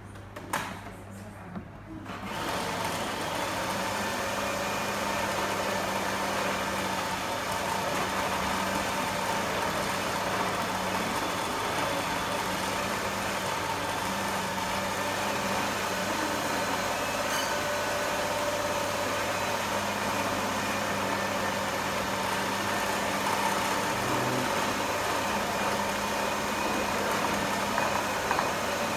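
Electric food processor switched on about two seconds in, its motor running steadily as it blends a sticky date-and-nut mixture for raw candies.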